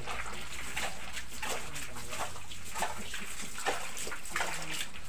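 Spatula stirring and scraping in a large wok on a wood-fired stove, in quick irregular strokes over a steady low hum.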